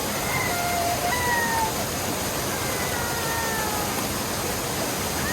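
A toddler crying in long, high, falling wails over the steady rush of a waterfall.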